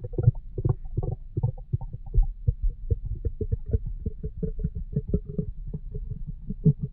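Human stomach growling and gurgling: a quick, uneven run of short low pops and bubbling sounds.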